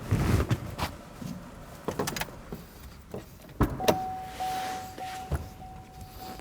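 Clicks and knocks of someone handling a car's door and interior, then, about four seconds in, a steady electronic warning tone from the car that keeps going.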